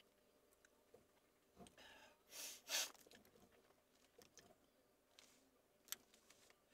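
A short, sharp burst of a person's breath noise about two and a half seconds in, against near silence inside a car cabin, with a faint click near the end.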